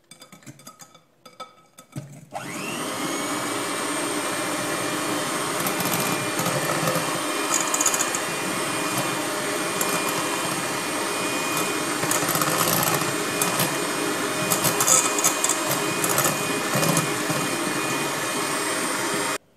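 Electric mixer whisking cake batter. The motor spins up about two seconds in, runs steadily with a whine, and cuts off abruptly just before the end. Before it starts there are a few faint clinks of hand stirring in the bowl.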